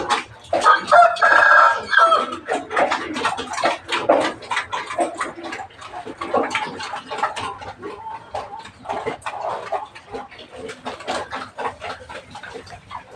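A rooster crows once about a second in, a long held call, followed by chickens clucking and many short, sharp sounds.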